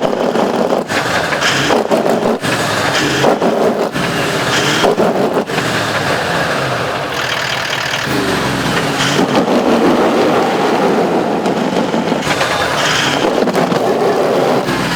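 A bogged 4WD's engine revving under load as it tries to drive out of the mud. The noise rises and falls unevenly.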